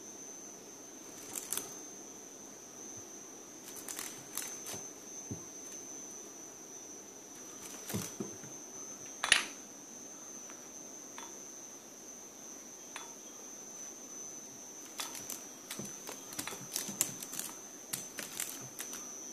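A cat's paws and claws tapping and scratching on a wooden ledge as it swats at a bug: scattered light clicks, one sharper knock about nine seconds in, and a quick flurry of taps near the end, over a steady high-pitched whine.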